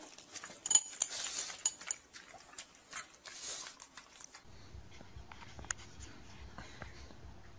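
A pug making short, sharp noises in quick succession for about four seconds, the loudest about a second in. Then a low steady hum with faint clicks.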